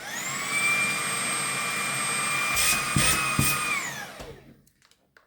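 Dreame V11 cordless stick vacuum's high-speed motor running in medium suction mode, a steady rushing sound with a high whine on top. A few clicks come between two and a half and three and a half seconds in, then the motor winds down and stops about four seconds in.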